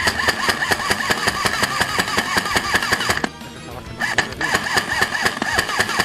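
Background music with a fast, even beat and a steady high synth tone, starting abruptly and breaking off briefly a little after three seconds in before resuming.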